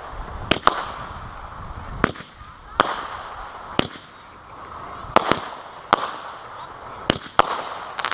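Consumer fireworks going off: about ten sharp bangs at uneven intervals, some in quick pairs, with crackling and hiss between them.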